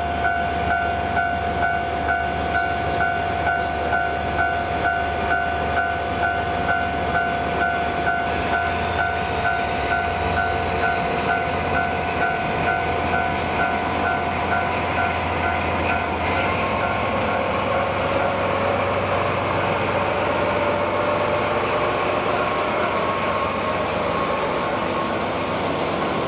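Japanese level-crossing warning alarm ringing at about two beats a second while a freight train runs over the crossing. The alarm stops about two-thirds of the way through, leaving the train's rumble and a slowly rising engine tone.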